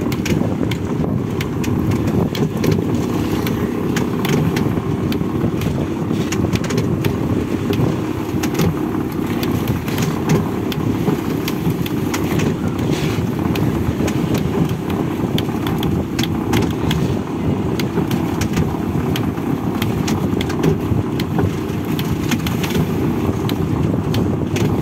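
Fishing boat's inboard engine running steadily, driving a deck capstan that hauls in rope, with scattered clicks and creaks of the rope on the wooden drum.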